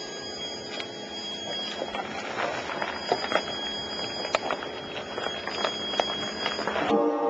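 Converted electric Jeep moving under electric power: a faint steady high whine, with scattered light clicks and ticks and no engine sound. It cuts off abruptly near the end.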